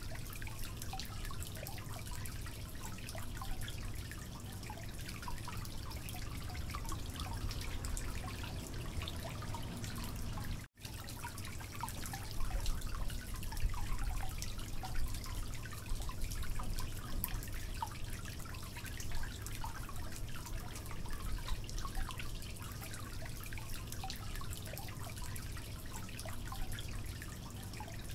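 Water dripping and trickling steadily over a low hum, scattered with small ticks. The sound drops out completely for an instant a little before the middle.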